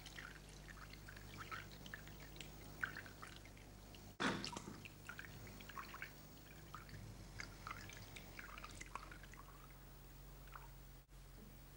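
Tap water running into a bathroom sink, with scattered small drips and splashes and a sudden louder burst about four seconds in, over a steady low hum.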